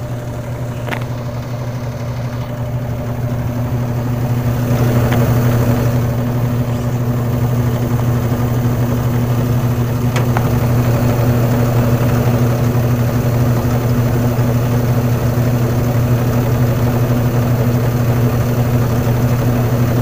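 Whirlpool automatic washing machine in its spin cycle: motor and drum running with a steady hum that grows louder over the first few seconds, then holds level. It is spinning fast and smoothly on a newly fitted drive belt, the fix for its weak spin.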